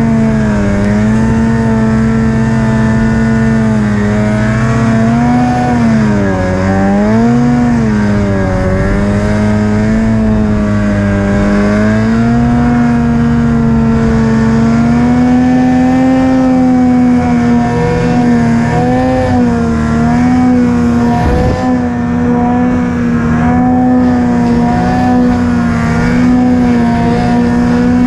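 Snowmobile engine running hard under throttle through deep powder snow. Its pitch dips and climbs several times in the first ten seconds, then holds high and steady, with one short dip past the middle.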